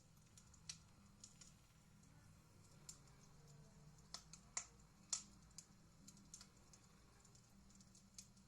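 Faint, irregular crackling clicks of a recorded wood fire, played back by an MP3 player module through an electric fireplace's small 2 W speaker, over a low steady hum.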